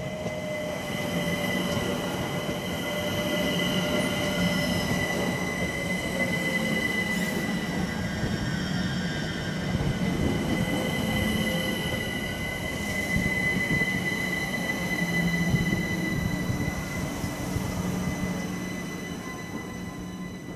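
A London Overground Class 378 electric multiple unit passing close by on curved track: wheels rumbling with a steady high-pitched wheel squeal. A lower whine falls in pitch over the first few seconds, and the sound fades near the end as the train moves away.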